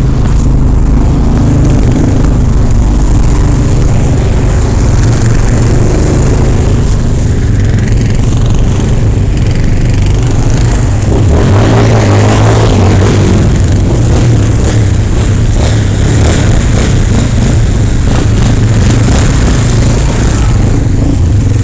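Off-road engines running steadily as quad bikes (ATVs) drive through a shallow stream, with one swelling louder for a few seconds about halfway through.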